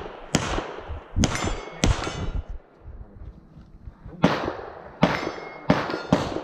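.22 rimfire rifle fired in quick succession at steel plates, each shot followed by the ring of the struck plate. About seven shots: three close together, a pause of about two seconds, then four more.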